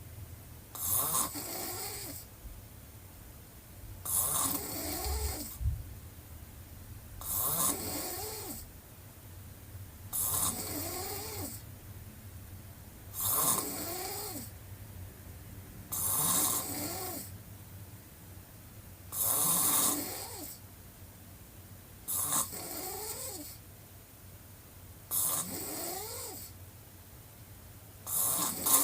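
A woman snoring with her mouth wide open: about ten regular snores, one every three seconds or so. Each starts with a loud rasp and carries a wavering pitched tone, with quieter breathing in between.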